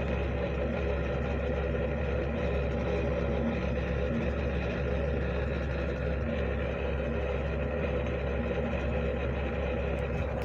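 Steady low machine hum with several held tones, running evenly without change.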